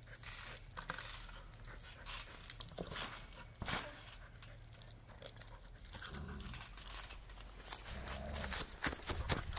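Two dogs playing close by: scattered light clicks and jingling, like collar tags and paws on grass, with two brief low sounds around six and eight seconds in.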